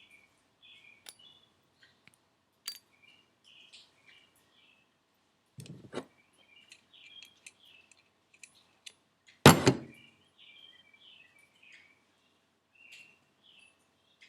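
Birds chirping steadily in the background, with a few sharp clicks and knocks from turbocharger parts being handled on the bench; the loudest is a heavy knock about nine and a half seconds in, with a softer thud a little before six seconds.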